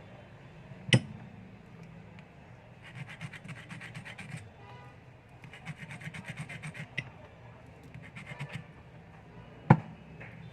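Quick scraping strokes in three runs, with a sharp click about a second in and another near the end: hand work on a USB charging cable being repaired.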